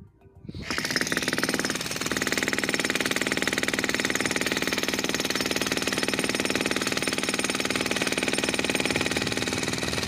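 Electric demolition breaker hammering into a reinforced concrete slab, a rapid, steady stream of chisel blows that starts about a second in.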